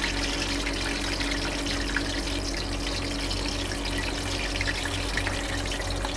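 Okra deep-frying in a stainless pot of hot oil: a steady sizzle with fine crackles, over a steady low hum.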